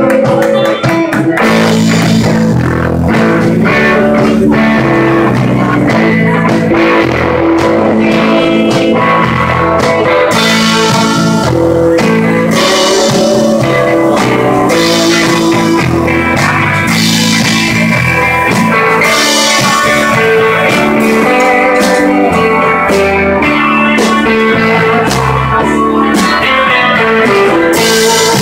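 Live blues-rock band playing: electric guitars, bass guitar and a drum kit, with the cymbals coming in stronger about ten seconds in.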